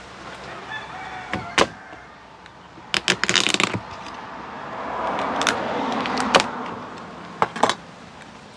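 Kitchen knife cutting through cooked lobster tail shells on a plastic cutting board: sharp clicks and cracks of the blade through the shell and against the board, with a quick run of cracks about three seconds in.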